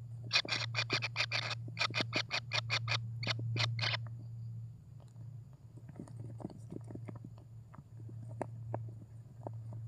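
Kingfisher nestlings giving rapid raspy begging calls, about four to five a second, stopping after about four seconds; scattered faint ticks follow, over a steady low hum.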